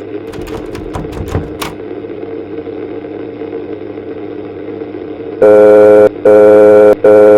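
Steady low background drone with a few clicks in the first two seconds. About five seconds in, three loud buzzy electronic alert tones sound in quick succession, each under a second long. They are a mock emergency-alert broadcast's signal that an urgent new bulletin follows.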